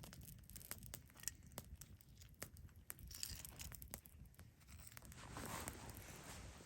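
Lit fire paper tinder burning with faint, scattered crackles and small clicks, and a soft rustle building up about five seconds in.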